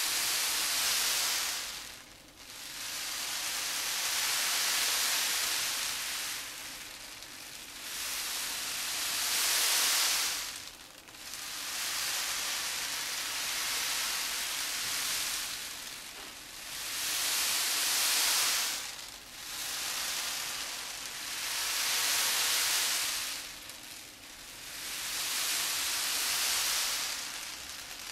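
Dried azuki beans rolled back and forth as the traditional Japanese wave sound effect, a hissing rush that swells and ebbs every few seconds like surf washing in and drawing back.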